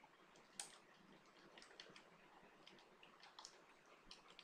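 Faint computer keyboard typing: a run of irregular keystroke clicks as a word is typed.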